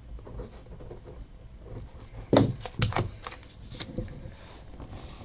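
A few light, sharp clicks and taps, bunched about two to three seconds in with a couple more near four seconds, over a low steady room hum.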